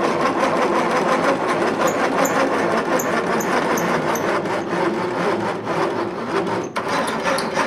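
CarveWright CNC carving machine's head being hand-cranked up and down, its lead screws and corner-post guides grinding and rubbing continuously, with light ticks about three times a second for a couple of seconds in the middle. The cranking is working freshly sprayed WD-40 into the threads to break up caked grease, and the sound changes as the gunk loosens.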